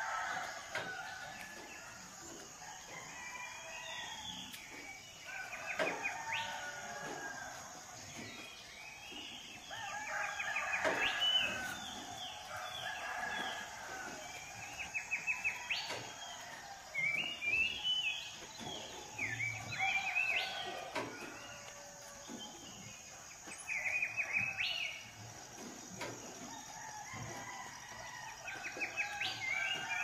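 Roosters crowing several times at varying distances, with small birds chirping and trilling in between.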